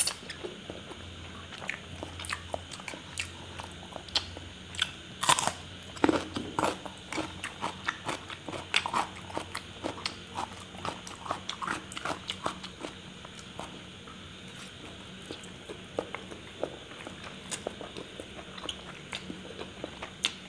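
Close-miked eating: spicy instant noodles slurped and chewed with many wet mouth clicks, mixed with crunchy bites of raw cucumber. It is busiest through the middle, then thins out for a few seconds before picking up again.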